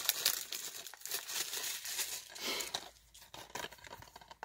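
Plastic wrap crinkling and tearing as it is pulled off a DVD case, a dense run of crackles that thins to scattered clicks about three seconds in.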